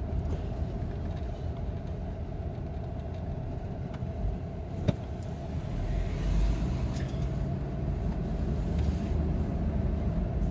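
A vehicle driving, heard from inside the cabin: a steady low engine and road rumble, with one sharp click about five seconds in.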